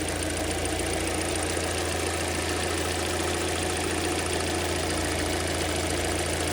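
Freshly overhauled Kia Sportage's G4NA 2.0-litre four-cylinder petrol engine idling steadily during running-in; it runs evenly, with no knock to pick out.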